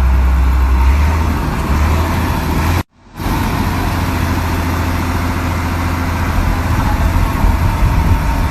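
Heavy truck engine running steadily, with the sound cutting out completely for a moment about three seconds in.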